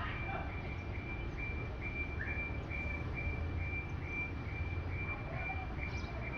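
Box truck's reversing alarm beeping at one high pitch in quick, regular beeps, over the low rumble of the truck's engine running. A few faint bird chirps.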